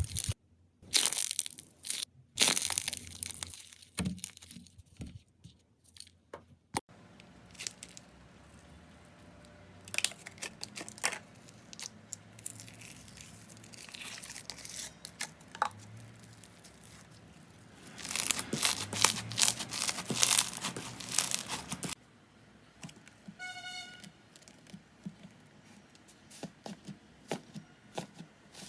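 Slime being squeezed, stretched and poked by hand, giving irregular crackling, crinkly sounds. They are loudest in the first few seconds and again in a dense stretch about two-thirds of the way through, with a short high squeak just after.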